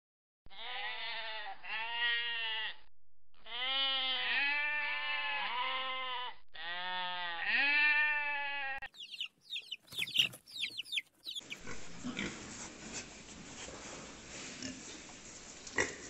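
Sheep bleating, a string of wavering calls one after another. About nine seconds in they give way to high squeals and then steady grunting and snuffling from a group of pigs.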